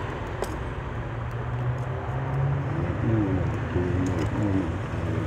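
Low steady motor hum, with faint voices in the background from about halfway through and a single light click about half a second in.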